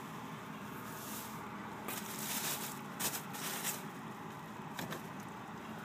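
Packing material being handled in a cardboard box: bubble wrap and paper shred rustling and crinkling in several short crackles over a steady low hiss.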